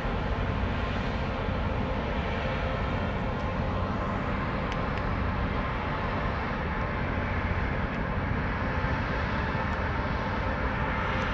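Steady low rumble and hiss of outdoor harbour background noise, with no distinct events.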